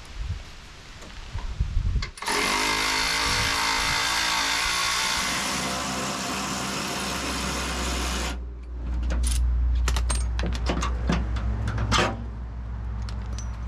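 A handheld cordless power tool runs for about six seconds, loosening the nut on a shock absorber's upper mount, then stops. A run of sharp metallic clicks and clinks follows over a low hum as the fastener and shock are worked loose.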